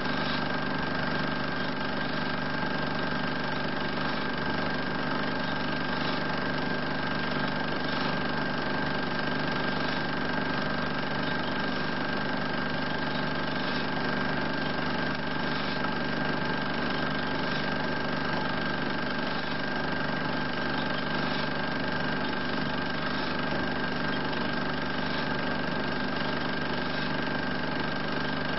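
16 mm film projector running steadily: a constant motor hum with a high steady whine over it.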